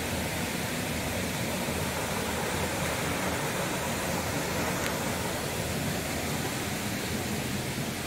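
Steady, even rush of falling water from a small waterfall.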